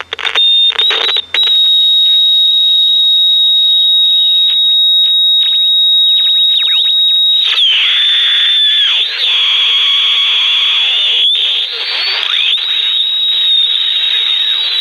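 Audition germanium AM pocket transistor radio squealing loudly through its small speaker: a steady high whistle with sweeping, warbling whistles over it, growing harsher about halfway through. This squeal is typical of a failing AVC filter capacitor.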